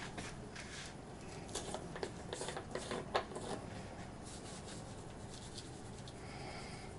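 Scattered light clicks and scrapes of handling during the first three and a half seconds, the sharpest a little after three seconds in, then a faint steady tone near the end.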